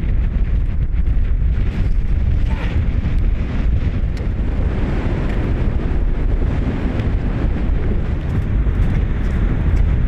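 Strong wind buffeting the microphone: a loud, steady low rumble with no breaks.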